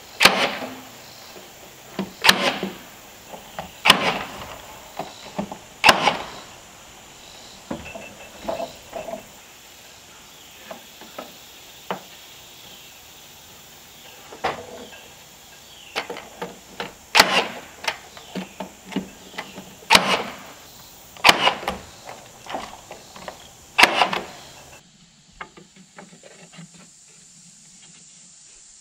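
Sharp repeated shots of a cordless nail gun fastening wooden trim boards overhead, mostly about two seconds apart in runs, with smaller clicks and knocks of the boards and tool between. The shots stop abruptly near the end.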